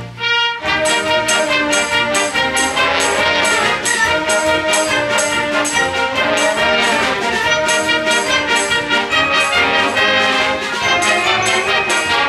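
A junior high school symphony orchestra playing a Disney film-music medley, with the brass to the fore. After a brief thin moment at the very start, the full ensemble comes in with a steady accented beat.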